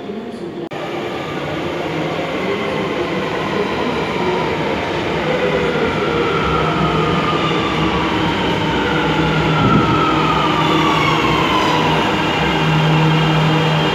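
Subte train pulling into an underground station, its rumble growing louder as it comes in. A whine from the train falls in pitch as it slows.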